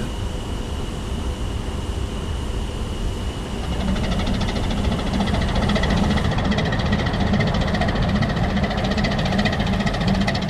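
Diesel engine of an inland cargo motor ship running steadily as the ship pushes out of a boat-lift trough, its propeller churning the water. The low engine drone gets louder about four seconds in.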